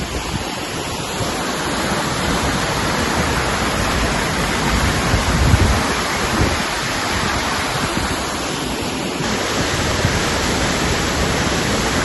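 Waterfall running, a steady, dense rush of falling water.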